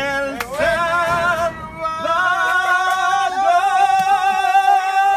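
A person singing one long held note with a slight vibrato, starting about half a second in.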